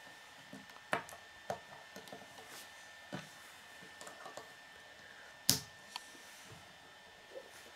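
Plastic K'nex rods and connectors being handled and clicked together, a handful of scattered sharp clicks with the loudest about five and a half seconds in. A faint steady high tone runs underneath.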